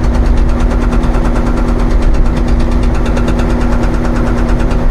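A Hauyee 35c mini excavator's hydraulic hammer breaking granite ledge in rapid, even blows, about ten a second, over the steady running of the machine's engine, heard from inside the cab.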